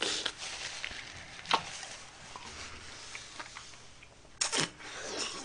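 Close mouth sounds of eating a frozen strawberry off an ice cream cake: quiet chewing with a few short, sharp smacks, one at the start, one about a second and a half in, and the loudest about four and a half seconds in.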